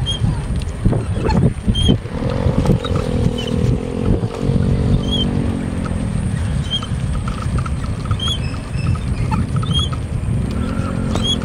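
Wind buffeting the microphone and road rumble while riding along a concrete road. A steady humming drone comes in about two seconds in, fades out past the middle and returns near the end.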